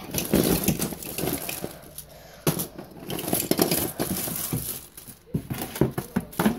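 Rustling and scraping handling noise with scattered clicks, as the recording device is moved close over a fleece blanket.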